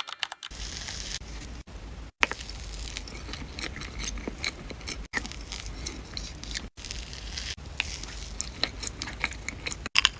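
Close-up eating sounds of strawberry cake being chewed, with many small soft clicks and squishy mouth noises over a steady low hum. The sound drops out briefly several times.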